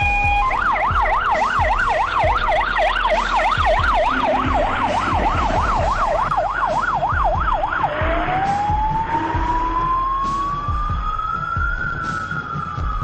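Fire engine siren sounding in a fast yelp, sweeping up and down about three times a second. About eight seconds in it switches to a slow wail that rises and then begins to fall near the end.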